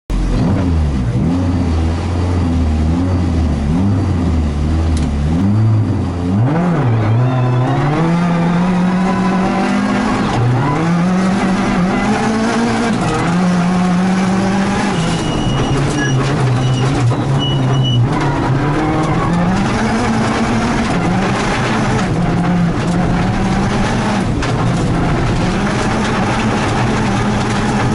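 Rally car engine heard from inside the cabin on a gravel stage, revs wavering for the first few seconds, then climbing and dropping back again and again as it pulls up through the gears, over constant gravel and road noise.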